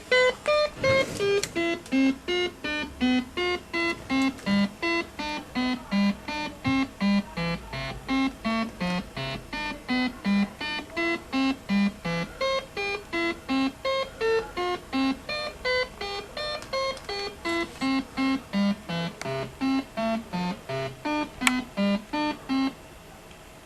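Electronic jingle from an adp Merkur Venus 4Asse slot machine: a long melody of short bright beeping notes, about two and a half a second. Near the end there is a single click, and the tune stops shortly after.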